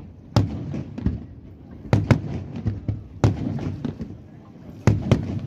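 Aerial firework shells bursting: about seven sharp bangs, some in quick pairs, each trailing off in a rolling echo.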